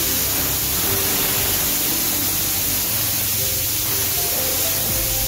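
Pressure-washer wand blasting water at a car's wheel and wheel arch: a steady, unbroken rush of spray.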